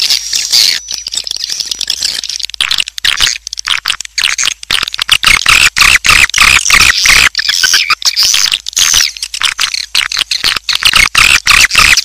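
Recorded swiftlet chick calls ('baby walet'), the roosting call ('suara inap') played to lure swiftlets into a bird house: a dense, high-pitched chirping and twittering of many birds, a little thinner for a couple of seconds near the start.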